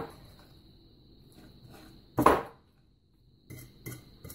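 A metal fork mashing minced pork against a glass plate: quiet mixing, one brief louder noise about two seconds in, then from about three and a half seconds a quick run of fork clicks and scrapes on the glass. A faint steady high whine sits underneath.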